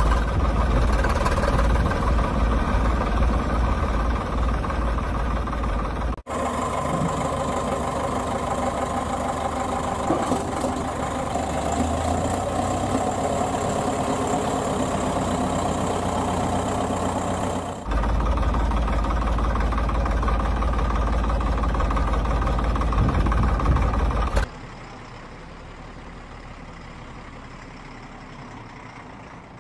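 A vehicle engine running steadily, heard in several stretches that change abruptly where the clips are cut, then much quieter for the last few seconds.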